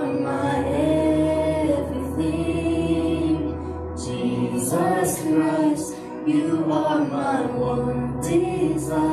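Two women singing a worship song into microphones over instrumental accompaniment with long held bass notes.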